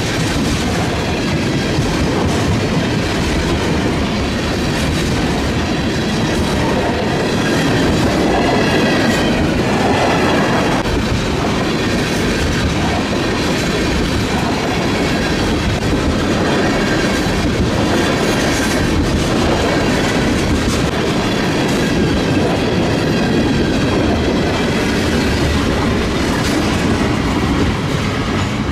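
Canadian National freight train cars rolling past, wheels clattering steadily on the rails, with faint high wheel squeal now and then.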